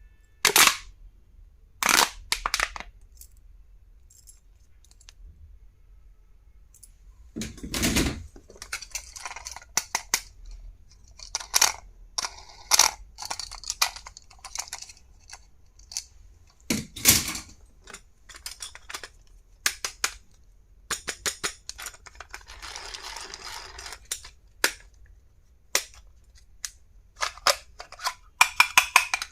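Stationery items and their packaging being handled: sharp clicks and knocks of hard plastic pieces, with stretches of rustling wrapping and a quick run of clicks near the end.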